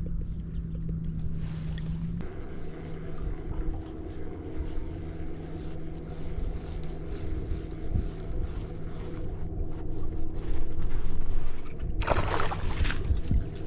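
Steady low rumble with a faint hum over open water. About twelve seconds in it is broken by loud splashing as a hooked fish thrashes at the surface by the rod tip.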